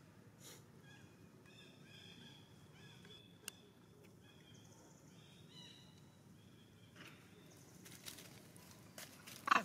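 A bird calling faintly: a run of short, high, repeated notes lasting several seconds. A single click comes partway through, and a brief louder noisy sound comes right at the end.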